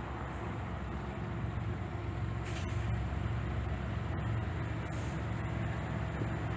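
Train running with a steady low rumble from a diesel locomotive and a haze of wheel and rail noise; no horn sounds.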